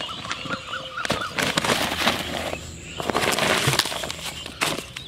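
Woven plastic sack rustling in two long spells as fish are tipped out of it onto grass, with a sharp click near the end. Short bird chirps come in the first second.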